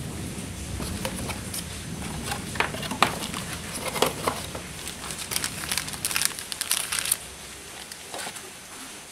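Plastic packaging bags crinkling and a cardboard box being handled, with light clicks and knocks as kit parts are packed away. The crinkling thickens about four seconds in and stops about seven seconds in.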